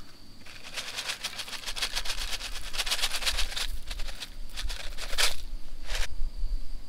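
Dried shredded potatoes poured from a cardboard carton into a metal pan of water: a dense rustling patter for about three seconds, followed by two short knocks.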